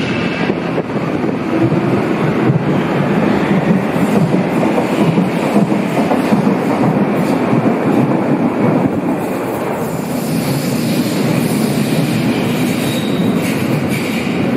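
Berlin U-Bahn F-type underground train pulling out of the station, its steady running noise and wheel clatter on the track filling the tiled hall. About ten seconds in, the sound changes to a second train, a yellow H-type, in the station, with more hiss and a brief thin high tone near the end.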